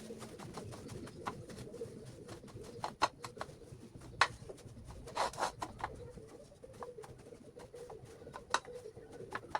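Scattered light clicks and taps, with a short rustle about five seconds in, over a low steady hum.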